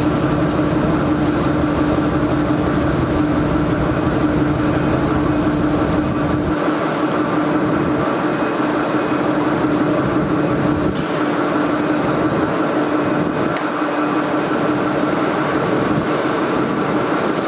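Steady, loud machine hum with a constant mid-pitched drone and a noisy wash over it. Its deep low rumble drops away about six seconds in.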